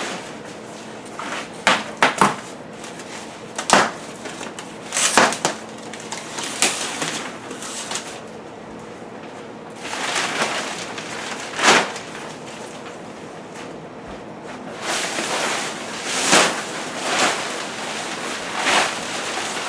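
Cardboard appliance packaging being handled and opened: a series of sharp knocks and scraping, rustling swishes, with a longer stretch of rustling in the second half.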